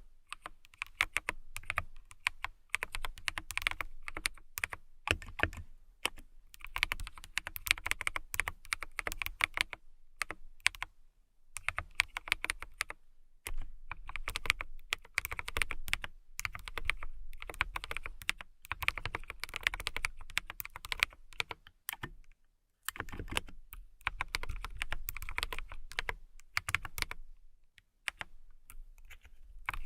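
Fingernails tapping rapidly, dense runs of sharp clicks in flurries of a few seconds with short pauses between them.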